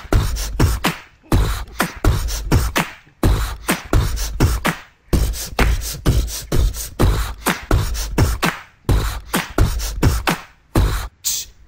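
Beatboxed hip-hop beat: mouth-made kick drums, snares and clicks in a steady, fast rhythm.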